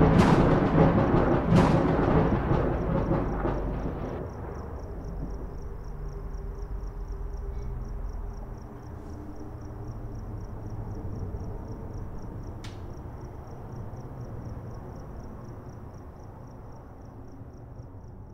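Cinematic sound design for an object falling from the sky: a heavy rumble with a few deep booms that dies away over about four seconds. It settles into a low, dark drone with a faint, quick high pulsing, and there is a single sharp click about twelve seconds in.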